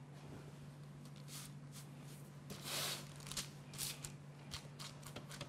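Baking paper rustling and crinkling as hands lay and press thin bread dough flat onto it, in several brief soft bursts, the loudest about two and a half seconds in. A steady low hum runs underneath.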